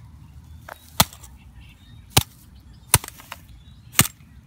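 Four sharp blows, about one a second, of a striking tool smashing an old smartphone lying in grass.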